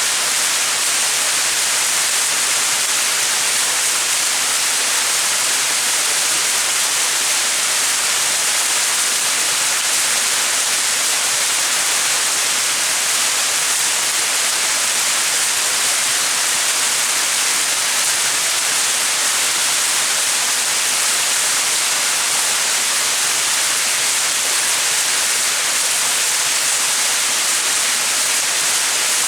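Small mountain waterfall splashing, a steady hiss of falling water with most of its energy high up and no change in level.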